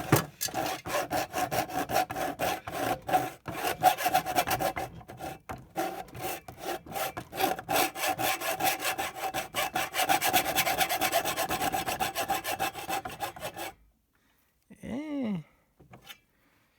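Hand saw cutting into a router's thick plastic case, in fast, steady back-and-forth strokes. The sawing stops about fourteen seconds in.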